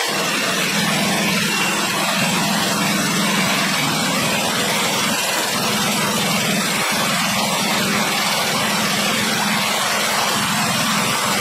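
Portable band sawmill's gas engine and blade running with a loud, steady drone.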